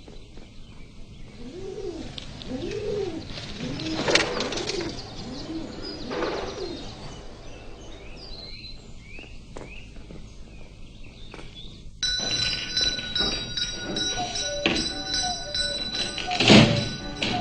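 Doves or pigeons cooing, a few rise-and-fall coos in the first half. About twelve seconds in it cuts suddenly to steady held tones of music.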